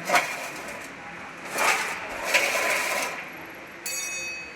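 Workshop handling noises, rough scraping and rustling, then near the end a metal part is struck or set down and rings briefly with a clear metallic tone.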